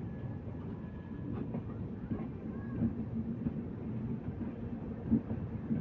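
Shunting locomotive running with a steady low rumble.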